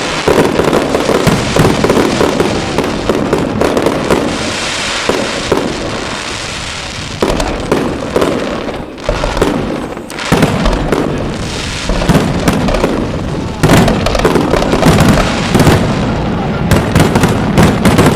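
Fireworks going off in a dense, continuous barrage of bangs and crackling, easing briefly about halfway through before picking up again.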